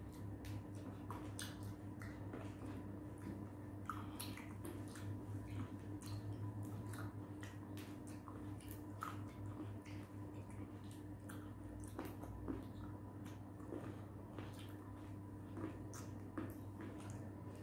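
Two people chewing mouthfuls of green grapes: wet squishing with many short, sharp clicks scattered throughout, as grapes are bitten and plucked from their stems. A steady low hum runs underneath.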